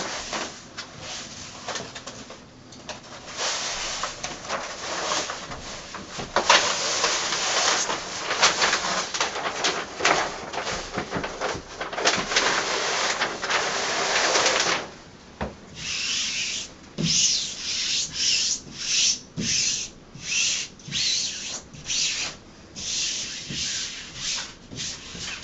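Backing paper being pulled off a peel-and-stick wallpaper mural, a long continuous rustle, then hands sweeping over the mural in quick rhythmic strokes, about two a second, smoothing it onto the wall.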